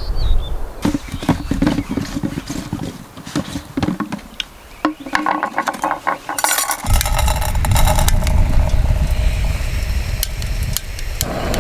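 Clicks, clinks and rustles of camp gear being handled while a backpacking canister stove is set up, with wind rumbling on the microphone at the start and again from about the middle on.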